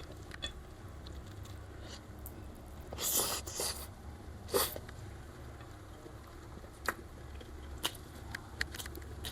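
Quiet eating sounds: soft mouth clicks and chewing, with two short breathy bursts about three and four and a half seconds in, from an eater who has just choked on spicy sambal.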